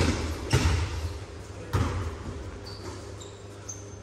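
A basketball bouncing on a sports-hall floor, three thuds within about two seconds that echo in the large hall. They are followed by a few short high squeaks near the end.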